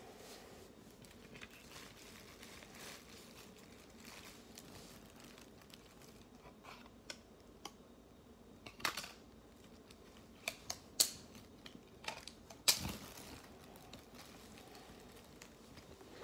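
A CD, its jewel case and plastic wrapping being handled: faint scattered clicks and plastic crinkles, with a few sharper clicks in the second half.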